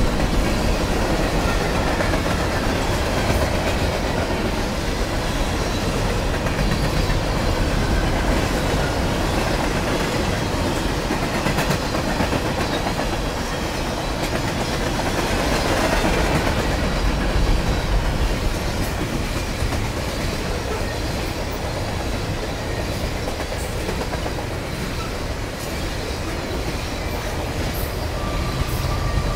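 A train rolling past, its cars making a steady rumble of wheels on rail.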